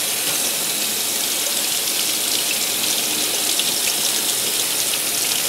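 Hot water running steadily from a tap into a stainless steel sink, splashing over a paper-covered copper circuit board held under the stream to soak the toner-transfer paper loose.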